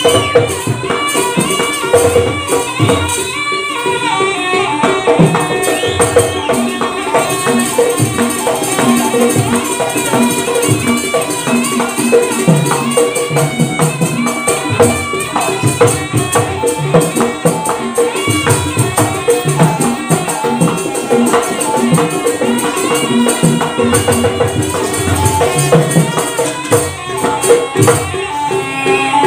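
Live jaranan gamelan music: a reedy, winding shawm-like melody over drum strokes and jingling, rattling percussion, played without a break.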